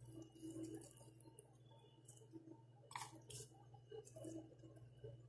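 Near silence: room tone with a steady low hum and a few faint clicks, the clearest about three seconds in.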